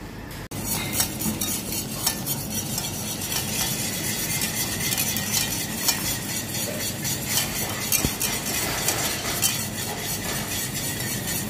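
A sauce being stirred in a pan with a utensil, with continuous scraping and frequent small clicks against the pan.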